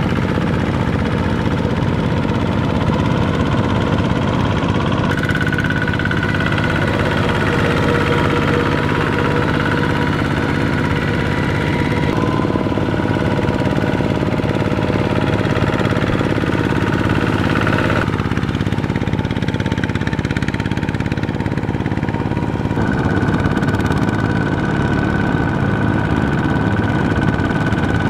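Single-cylinder Kubota ZT diesel engines of two-wheel walking tractors chugging steadily under load while pulling cage wheels and a harrow through a rice paddy. The engine note jumps to a different pitch a few times as one tractor gives way to another.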